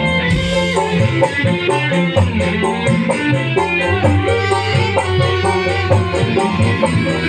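A live dangdut band playing an instrumental passage: electric guitar, bass guitar and keyboard carrying the melody over hand drums and a fast, even rattle of shaker-like percussion.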